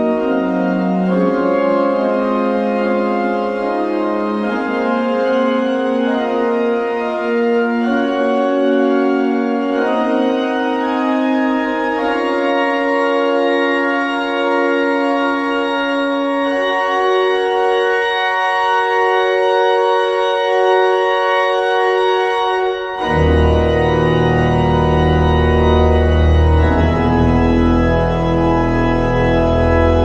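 Background music: an organ holding slow, sustained chords that shift every few seconds, with a deep bass part coming in about three-quarters of the way through.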